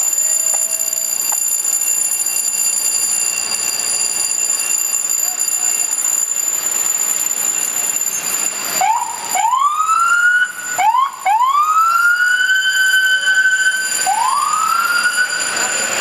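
Steady street noise, then from about nine seconds in a fire department battalion chief's vehicle siren sounds: four short rising whoops, then two longer wails that climb and hold a high pitch before cutting off.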